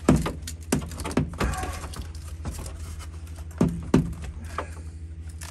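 Hard plastic knocking and clicking as a wiring plug is wiggled and pulled off the back of an old Ford instrument cluster, with the cluster housing bumping the dash. There are several sharp knocks, the loudest just after the start and two close together near four seconds in, over a steady low hum.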